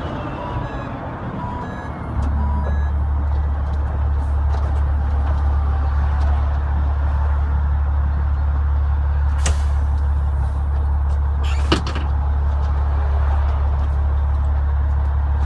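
Renault Magnum truck's Mack E7 E-Tech diesel engine slowing down, its pitch falling over about two seconds while a short warning tone beeps about twice a second, then settling into a steady idle. Two sharp clicks sound in the second half.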